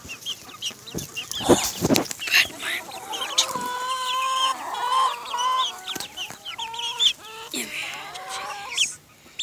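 Several chickens clucking and calling in short, overlapping, pitched calls. A few loud knocks come about a second and a half in.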